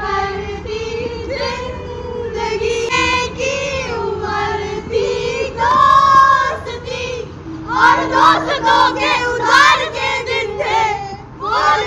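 Female voices singing a melody over a steady held note.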